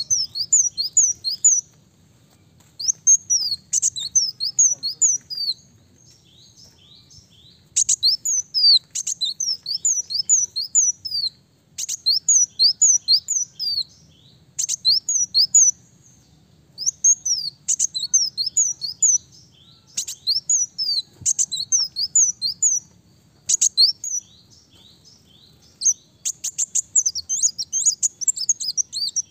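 Male ruby-cheeked sunbird singing: bouts of rapid, high, swooping chirps, several notes a second, repeated every few seconds with short pauses between them.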